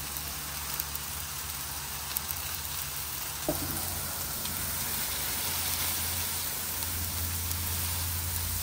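Smash-burger patties pressed onto onions sizzling on a hot griddle, a steady hiss, with a single knock about three and a half seconds in.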